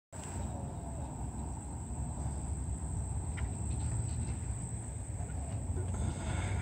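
Outdoor ambience: a steady high-pitched insect trill over a low rumble, with a few faint bird chirps.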